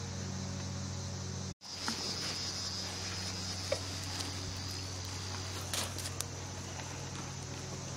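A steady high drone of insects, typical of crickets, over a low steady hum, with a few faint clicks. The sound drops out for a moment about one and a half seconds in.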